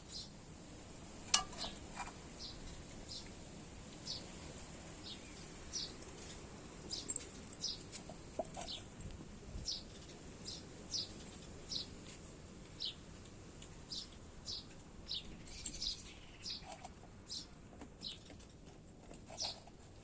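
A bird chirping repeatedly: short, high, slightly falling chirps about one to two a second over a faint steady background hiss, with one louder sharp click about a second in.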